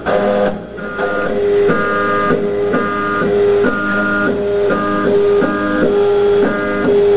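Stepper motors of a 35 W desktop laser cutter whining as the head traces finger-joint edges in plywood: short pitched tones that switch pitch every fraction of a second in a repeating pattern, over a low steady hum.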